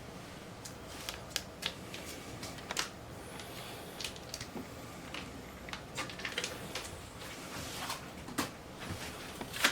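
Sticks of butter being unwrapped and put into a mixer bowl: scattered light taps and clicks with some paper rustling.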